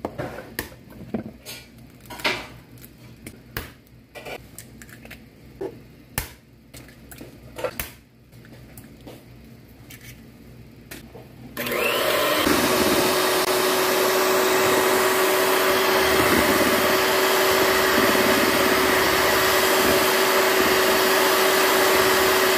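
Scattered sharp taps and knocks as eggs are cracked into a bowl, then about halfway through a Kenwood electric hand mixer switches on suddenly and runs steadily with a constant hum, beating the eggs.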